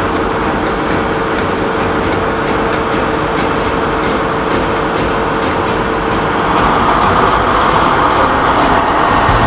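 Diesel engine of a Class 43 HST power car idling at a standstill: a steady mechanical drone with a thin whine. The drone grows louder and brighter about six and a half seconds in.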